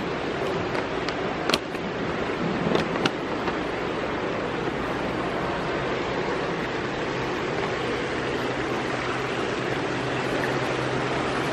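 Indoor fountain's many small water jets splashing, a steady rush of falling water, with a few sharp clicks in the first three seconds.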